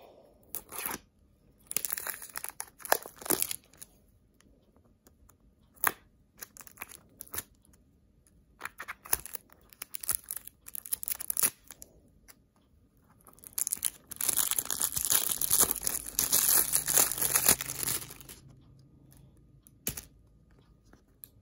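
Clear plastic wrapping on a cardboard product box being pierced, torn and peeled off, crinkling in short irregular bursts, with one long stretch of continuous crinkling about two-thirds of the way through.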